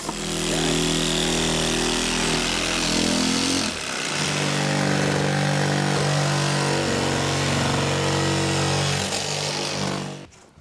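Battery-powered Equalizer windshield cut-out saw running steadily while its blade cuts through the wet urethane bead holding the windshield. Its pitch shifts slightly about four seconds in, and it stops near the end.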